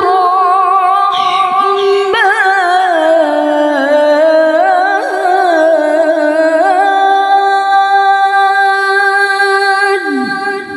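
Woman reciting the Qur'an in melodic tilawah style, drawing out one long melismatic phrase on 'wa 'ibad'. The voice winds through quick ornamental turns, settles into a steady held note, and breaks off near the end with a reverberant tail.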